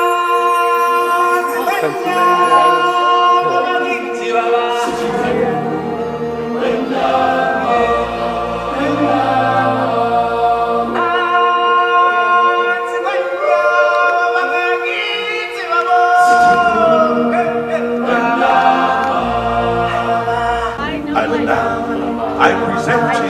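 Live stage-show music: a choir and solo voices singing over a steady held note, with a deep bass part coming in about five seconds in and dropping out for a few seconds past the middle.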